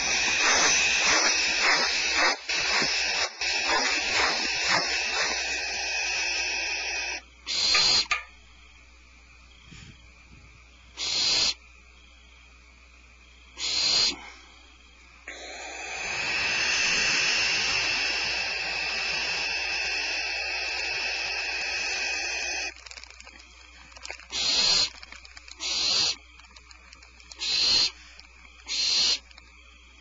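Barn owls hissing: a long, high hissing screech for about seven seconds, then single short hisses every few seconds, another long hiss of about seven seconds in the middle, and a run of short hisses near the end.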